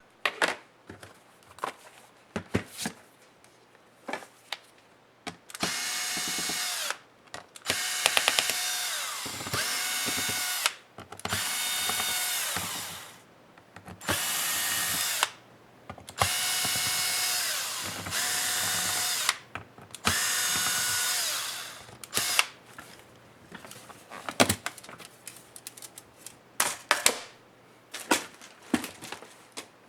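Small electric screwdriver running in about seven short bursts of one to two seconds each, backing out the laptop's bottom-cover screws. Some bursts wind down in pitch as the motor stops. Sharp clicks and knocks of tool and screw handling come before and after the bursts.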